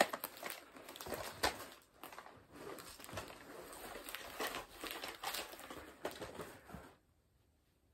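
Rustling and crinkling of uniform fabric and strapped-on armor gear, with irregular knocks, as the wearer thrashes his arms about. It stops about a second before the end.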